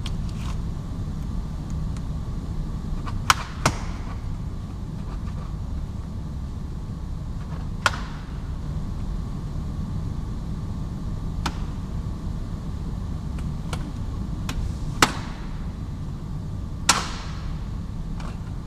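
Plastic clips of a Renault Clio 4's boot side trim panel snapping loose one after another as the panel is jerked free by hand. About eight sharp clicks come at irregular intervals over a steady low hum.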